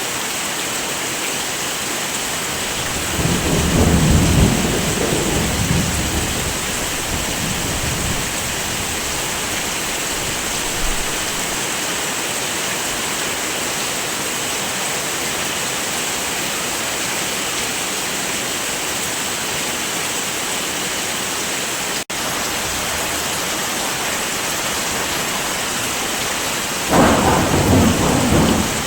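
Steady heavy rain, with two low rolls of thunder, one about three seconds in lasting a few seconds and another near the end. A split-second dropout in the sound about two-thirds of the way through.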